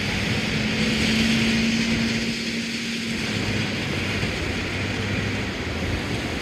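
Bulldozer's diesel engine running, a steady low note that fades back a little past halfway, over a constant rushing background.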